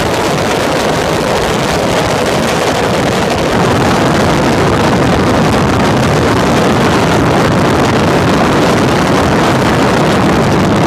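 Loud wind rush buffeting the onboard microphone of a Peugeot prototype race car at speed, with the car's engine running underneath. The level steps up slightly a few seconds in.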